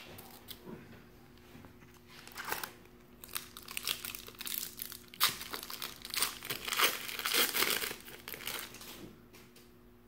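A foil card-pack wrapper being torn open and crinkled by hand, in irregular bursts of rustling that start about two seconds in, grow loudest in the middle and die away near the end.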